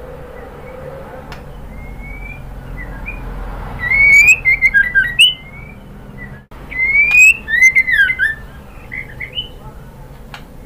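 White-rumped shama whistling: two loud bursts of quick, clear whistled notes with rising and falling slurs, about four seconds in and again about seven seconds in, with softer single whistles between. Sold as a female shama's call, played to rouse a male to sing.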